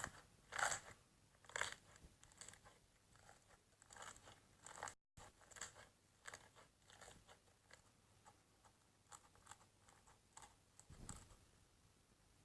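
Faint, irregular crunching and crackling of slime being squeezed and poked, loudest in the first couple of seconds, with a brief cut about five seconds in.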